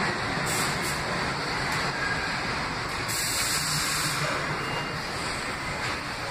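Subway train running along a far track through the station: a steady noise of wheels on rail, with a brief higher hiss about three seconds in.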